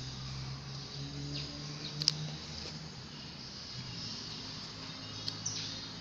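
Quiet background of high-pitched insect chirring, with a sharp click about two seconds in and two smaller clicks near the end.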